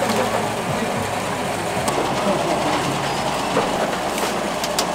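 Steady mechanical clatter of a motor-driven corn rotisserie, its geared skewer drive turning the cobs over the charcoal, with a few sharp clicks near the end.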